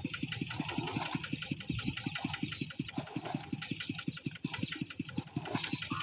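A small engine running steadily, with an even beat of about seven pulses a second.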